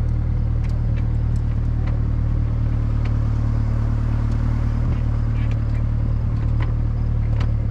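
Boat's outboard motor running steadily at an even pitch, with a low hum that does not rise or fall.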